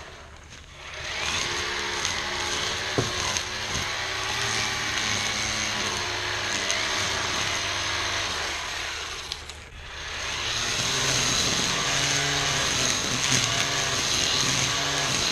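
ECHO 58-volt battery string trimmer running under load, its line whirring through tall weeds and grass. It drops off sharply near the start and again about two-thirds of the way through, then speeds back up.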